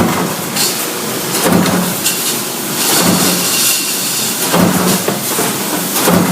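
Factory machinery running in a regular cycle: a short low hum with a clatter and hiss comes round about every one and a half seconds over a constant mechanical din.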